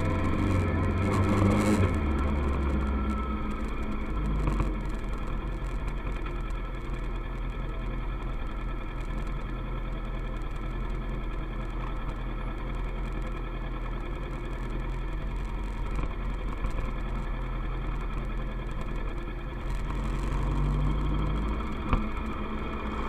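Kawasaki ER-6f's 649 cc parallel-twin engine running while the motorcycle is ridden, at fairly steady revs. The engine note shifts about four seconds in and again near the end.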